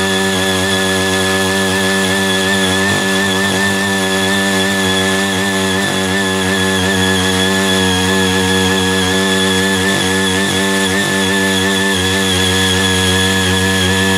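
Small engine of a CY80 mini power tiller running steadily under load while its six rotary tines till dry soil, with a steady high whine over the engine note.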